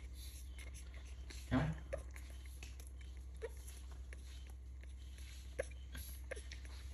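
A baby monkey swallowing milk from a plastic cup, with soft gulps and small clicks every second or so. There is a brief voiced sound about a second and a half in.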